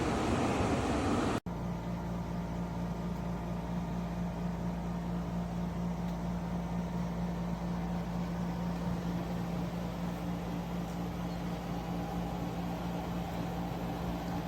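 Frigidaire 50-pint dehumidifier running. A loud even rush of fan air cuts off abruptly about a second and a half in, and a quieter steady hum with a constant low tone follows.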